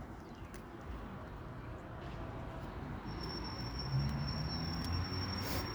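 Roadside traffic rumble, growing a little louder about halfway through, with a thin steady high whine over the second half.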